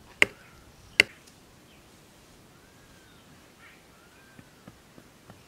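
A hand tool chopping hard twice, about three-quarters of a second apart, as an earth cooking stove is dug out; a few light taps follow near the end.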